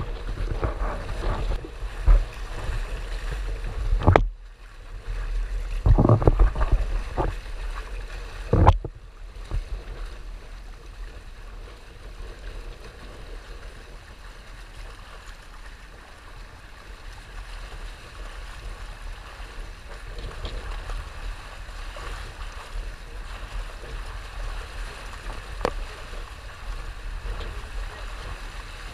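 Water rushing and splashing along the hulls of a Hobie Tandem Island trimaran sailing fast, with wind buffeting the microphone. Several loud gusts and splashes come in the first nine seconds, then it settles into a steadier rush.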